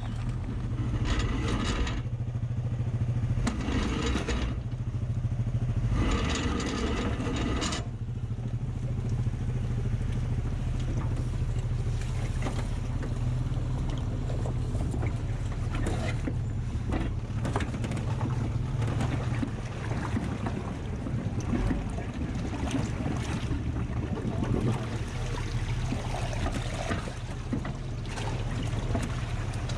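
A four-wheel-drive vehicle's engine running with a steady low rumble while crawling over rough off-road trail. It has bursts of rushing noise in the first eight seconds and scattered knocks and scrapes after.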